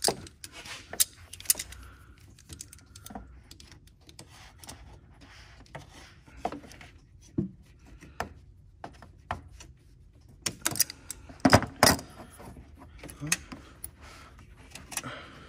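Metal clicks and clacks of pliers gripping and working a spring hose clamp off a small coolant line, with tool and clamp tapping against the engine parts. The loudest clacks come about three-quarters of the way through.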